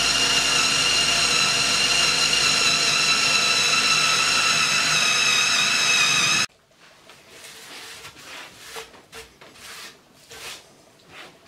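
Cordless drill running steadily under load as an HSS wood twist drill bit bores into a softwood beam. It stops abruptly about six and a half seconds in, leaving only faint taps and knocks.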